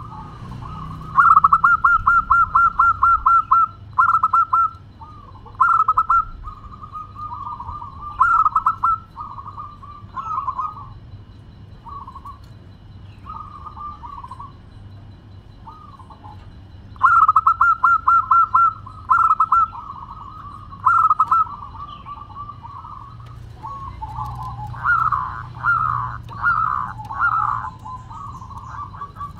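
Zebra dove (perkutut) cooing: phrases of clipped notes, with two fast rattling runs, one about a second in and another past the middle. Near the end comes a string of rising notes.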